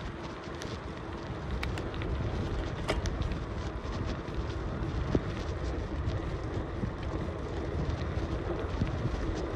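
Wind buffeting the microphone over the steady rumble of a moving bicycle, with a few sharp ticks and knocks.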